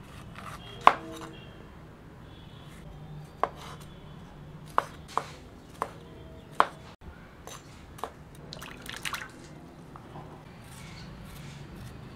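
A large kitchen knife chopping a green bell pepper on a wooden cutting board: sharp single knocks of the blade on the board, irregularly spaced, the loudest about a second in, followed near the end by a quick cluster of lighter clicks.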